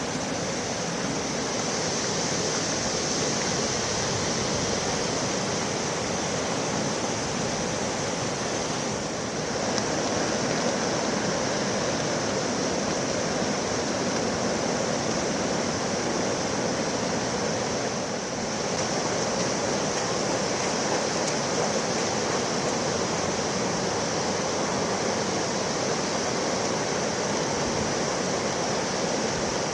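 Swollen floodwater rushing steadily, a constant loud hiss of fast-flowing water, with small shifts in level about nine and eighteen seconds in.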